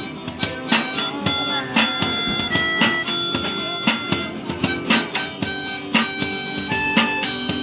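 Busker's music: a melody of held notes over a steady beat of about two strokes a second, with a plucked or strummed string sound.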